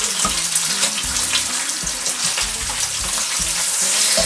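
Thick-cut bacon frying in a pan: a steady sizzling hiss with small scattered pops.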